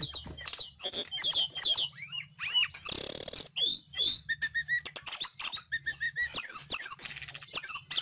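A caged tledekan gunung, a small flycatcher, singing a fast, varied song of chirps, trills and whistles. There is a brief harsh rasp about three seconds in, and a run of evenly spaced short notes in the middle.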